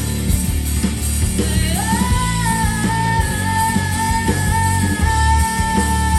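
A rock band playing live, with drums and bass under a lead line that holds one long high note, sliding up in pitch about a second and a half in and then held steady.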